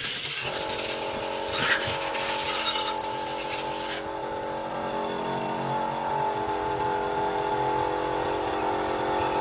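A workshop machine running steadily with an even hum, under a loud hiss that stops about four seconds in.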